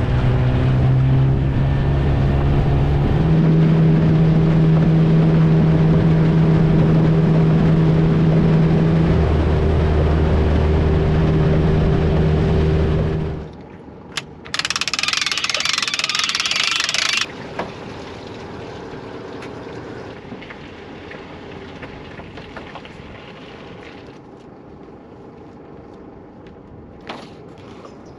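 Small outboard motor on an aluminium dinghy running at speed, with the wash of water along the hull; its pitch steps up about three seconds in, and it stops abruptly about halfway through. After that comes a loud hiss lasting about three seconds, then a quieter stretch with a few light clicks and knocks near the end.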